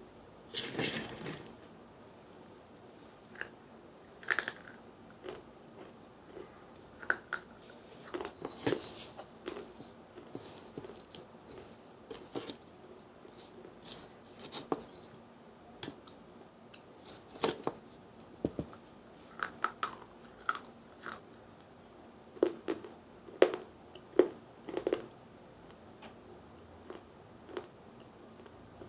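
Biting and chewing a small baked-clay diya: irregular sharp crunches and clicks, some coming in quick clusters, with pauses of quieter chewing between them.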